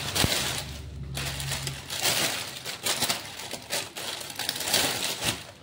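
Plastic produce bag crinkling and crackling in short, irregular rustles as a bunch of bok choy is handled and unwrapped. A low hum sounds under it for the first couple of seconds.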